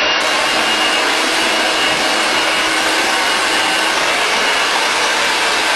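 Handheld hair dryer running steadily while blowing onto a section of hair: a loud, even rush of air with a thin high whine in it.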